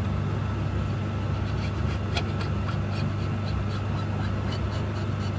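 Garage heater running with a steady low drone, with a few short scrapes of a Stanley blade across the alloy face of a sump plate, the clearest about two seconds in.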